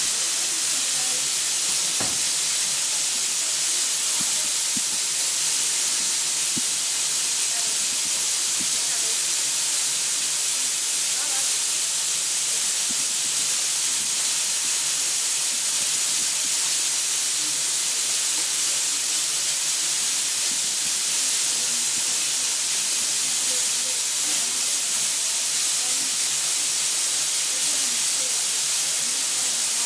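Steam hissing steadily from a standing narrow gauge steam train.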